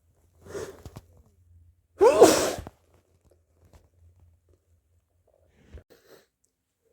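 A person sneezing: a short breathy intake about half a second in, then one loud, sudden sneeze with a brief vocal cry about two seconds in.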